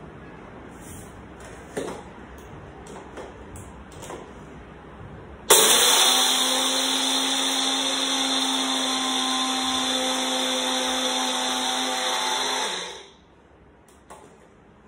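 Electric mixer grinder's small jar grinding granulated sugar into powdered sugar. A few light clicks as the jar is fitted on, then the motor starts abruptly about five seconds in, runs steadily with a hum for about seven seconds, and is switched off and winds down.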